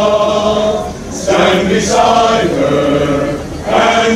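Men's chorus singing a cappella in sustained, held chords, with short breaths between phrases about a second in and near the end.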